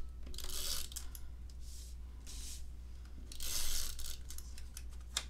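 Cardstock rubbing and rustling in several short strokes as the card front is glued and pressed onto the card base; the longest and loudest stroke comes about three and a half seconds in.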